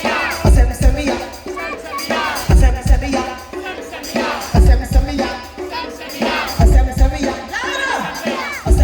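Live band playing an Afro-funk groove with a vocalist singing over it. Heavy bass-drum hits come in pairs about every two seconds.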